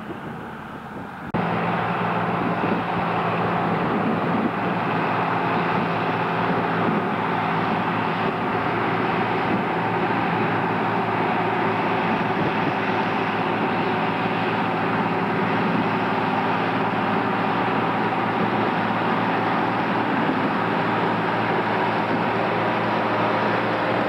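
The diesel engines of a Lamborghini Formula 115 and a Lamborghini Racing 165 tractor pulling steadily under load, coupled in tandem to a seven-furrow plough. The sound is faint for about the first second, then close and loud and steady.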